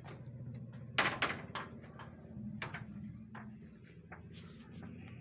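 Crickets chirping steadily over a low hum, with a sharp knock about a second in and a few lighter clicks after it.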